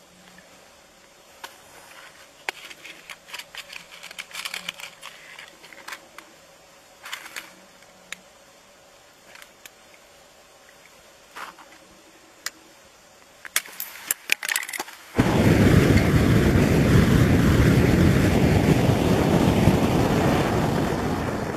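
Scattered scrapes and clicks of a knife point working at lake ice, then, about fifteen seconds in, a sudden loud rushing noise that lasts about six seconds and dies away: gas trapped in bubbles under the ice escaping through the hole, set alight with a match.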